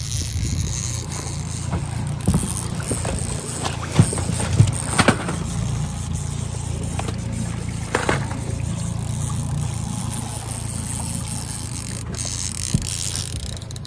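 Fishing boat's motor running steadily while trolling, with water and wind hiss and a few sharp knocks about four, five and eight seconds in.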